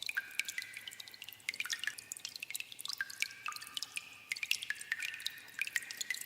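Water dripping in a cave: many irregular drops, each a sharp plink with a short ringing tone, some overlapping, echoing in the enclosed space.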